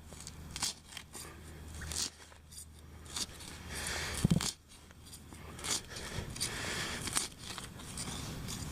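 Digging tool cutting and prying a plug of turf and soil: irregular crunching and scraping through grass roots and dirt, with one louder thump about four seconds in.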